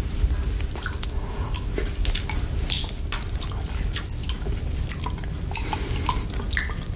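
Close-miked wet mouth sounds: licking whipped cream off a chocolate lollipop, with irregular wet clicks and smacks, beginning with the lollipop scooping cream from the bowl.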